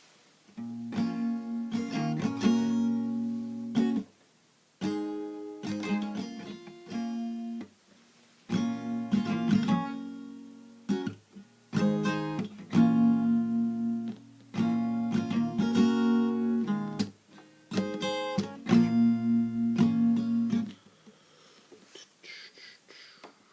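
A strummed string instrument plays chords in short phrases with brief pauses between them. It stops about three seconds before the end.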